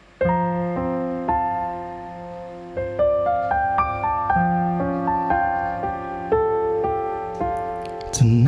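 Electronic keyboard on a piano voice playing the song's intro: struck chords that ring and die away, changing every second or so, with a few single notes stepping upward over them. Just before the end a short rising swell leads into the band.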